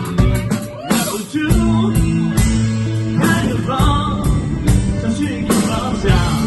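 Live rock band playing: electric guitars, bass and drum kit, with sung vocals.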